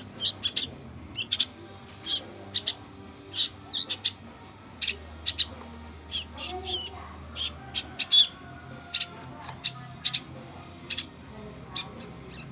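Young songbirds giving short, sharp high chirps, repeated irregularly, a dozen or more, as they are fed by hand.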